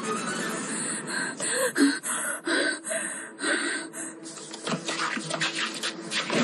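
A woman panting and gasping for breath, about six quick breaths in a row, then a rapid clatter of running footsteps on stone from about two-thirds of the way in.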